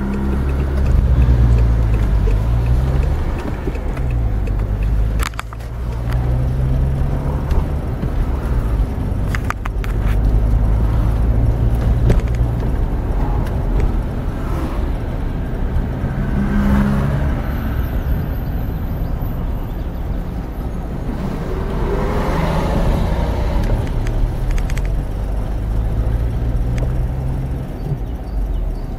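Car engine and road noise heard inside the cabin while driving. The engine note rises and drops back several times as the car accelerates and changes gear.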